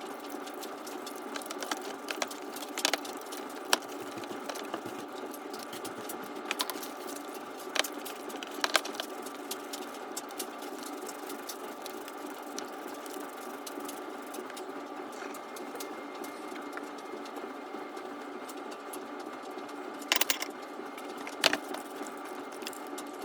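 Steady mechanical hum made of several tones, with scattered sharp clicks and clinks of tools and metal parts being handled during the teardown of a Craftsman mower's MST206 hydrostatic transaxle.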